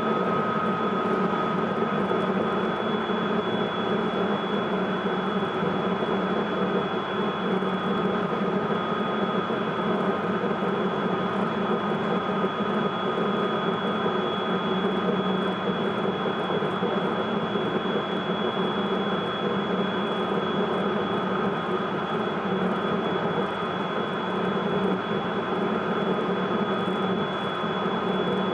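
Interior running sound of a Hokuetsu Express HK100 electric railcar under way: steady wheel and track noise with a constant high whine from its Mitsubishi IGBT-VVVF inverter and MT68 traction motors. A second, lower whine fades out in the first couple of seconds.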